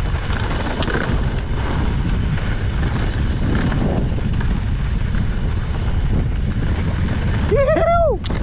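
Heavy wind buffeting the camera's microphone, with rumble from a mountain bike's tyres running fast over a dirt trail. Near the end comes a short whooping shout that rises and falls in pitch.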